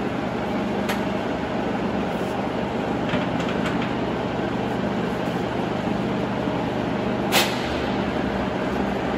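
Sachman bed milling machine's table feed drive running at its maximum feed rate: a steady mechanical whir and hum. There is a sharp click about seven seconds in.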